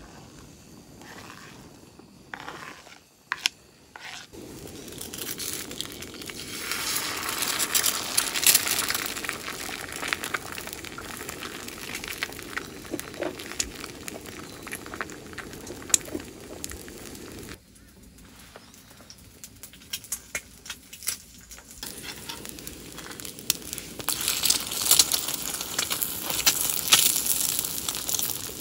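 Food frying in a pan, sizzling with a dense crackle of small pops. It grows louder about six seconds in, drops away for a few seconds a little past halfway, and comes back louder near the end.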